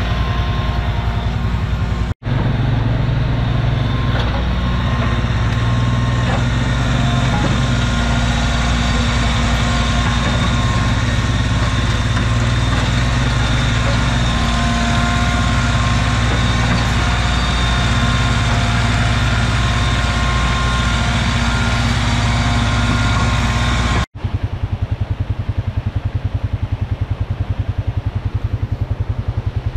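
Compact diesel tractor engine running steadily under load as it drags a back blade along a dirt road to grade it, with a brief break about two seconds in. Near the end the sound switches to a thinner, evenly pulsing engine idle.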